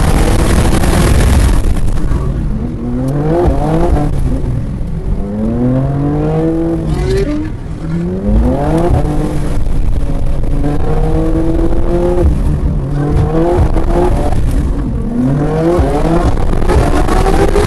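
Track cars' engines accelerating hard through the gears: the pitch climbs, drops back at each shift, and climbs again, several times over. Underneath runs a steady hiss, loudest in the first couple of seconds.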